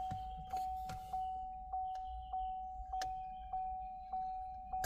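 Chevrolet Camaro's interior warning chime dinging over and over at an even pace, a little under two dings a second, each ding fading before the next. It is the key-reminder chime that keeps sounding while the car reads the key as still in the ignition, a common fault with these Camaros.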